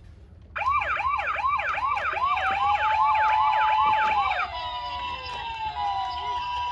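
Electronic sirens of toy ambulance minicars sounding together, starting about half a second in. First comes a fast yelp that repeats about three times a second, with a slower wail rising and then falling over it. From partway through, it changes to an alternating two-tone hi-lo ambulance siren.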